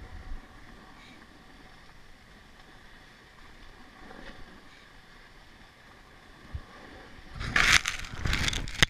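Skis sliding down a groomed piste: a faint steady hiss of snow and air, then loud rough rushing and rubbing noise in bursts for the last second and a half.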